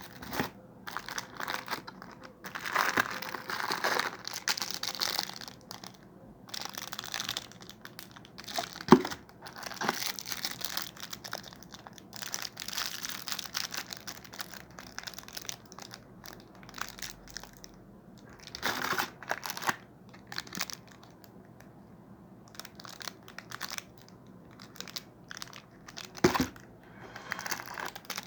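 Packaging crinkling and rustling in bursts as items are unwrapped by hand, with a couple of sharp clicks, the loudest about nine seconds in and another near the end.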